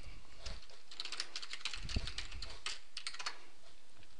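Typing on a computer keyboard: a run of quick, uneven key clicks as a short command is typed, over a faint steady hiss.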